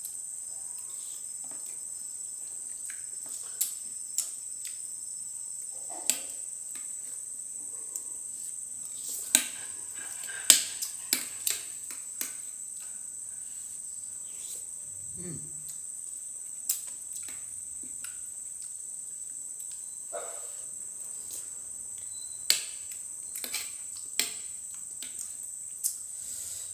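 A metal spoon clinking and scraping against a plate in sharp, scattered clicks as someone scoops and eats porridge. A steady high chirring of crickets runs underneath.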